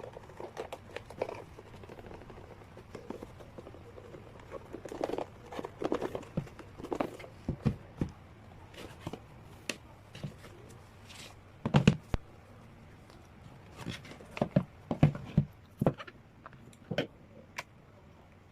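Hands handling sealed K-pop albums: plastic wrapping crinkling and rustling, with irregular taps and knocks, the loudest a pair of knocks about twelve seconds in.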